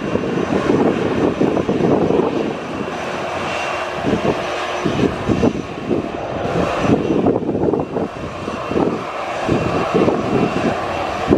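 Jet engines of an Airbus A320 airliner running as it rolls along the runway: a loud, uneven low rumble with a faint high whine through the middle.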